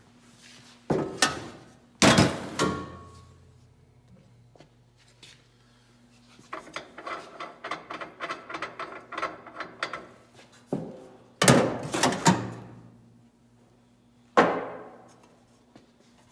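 Metal knocks and clanks from handling the end cover and drum of a Carter Day sizer tester, several sharp knocks that ring briefly. In the middle comes a few seconds of rapid, even clicking and rattling.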